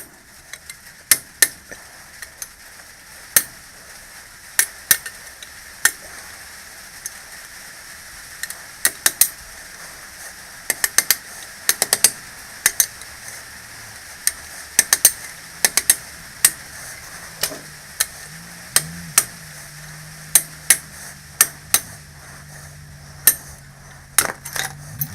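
Irregular sharp metallic taps and clicks of hand tools working on metal parts, dozens of separate strikes with short pauses between them. A low steady hum comes in during the second half.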